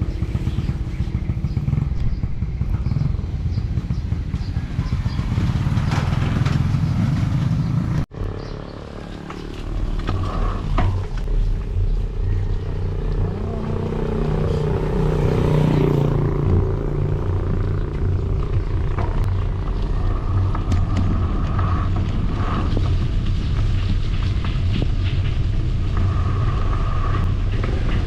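Steady low engine rumble that drops out abruptly about eight seconds in and builds back over the next two seconds.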